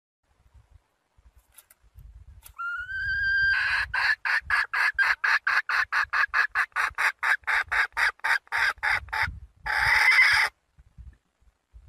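Red junglefowl hen calling to a rooster: a drawn-out note that rises slightly, then a long run of short clucks at about four a second, ending in one longer, harsher call.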